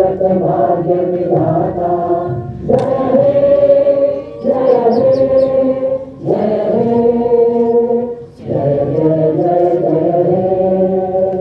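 A group of voices singing together in unison: long held notes in phrases of about two seconds, with short breaths between them.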